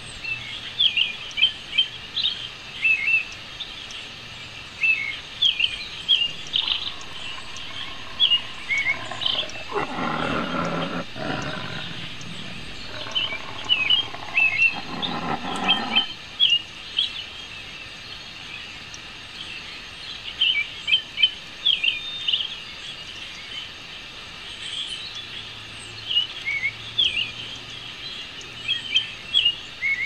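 Small birds chirping in quick high clusters again and again. In the middle, a louder, lower noise swells for several seconds and then fades.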